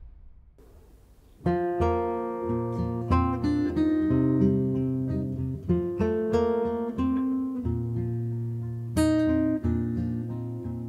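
Solo acoustic guitar playing the introduction to a song in plucked notes and chords, the notes ringing on. It comes in about a second and a half in, after a quiet moment.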